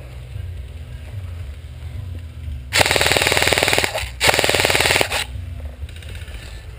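Airsoft gun firing on full auto: two bursts of rapid shots, each about a second long, with a short pause between.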